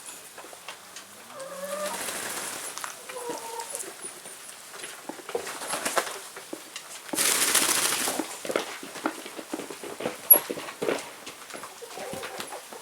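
Flock of hens making low, soft clucking calls, with scattered light taps throughout. About seven seconds in there is a rushing noise lasting about a second.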